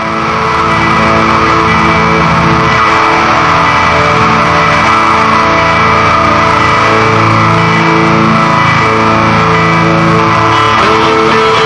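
Instrumental rock album intro: sustained electric guitar chords over bass, swelling to full loudness in the first second and then holding steady.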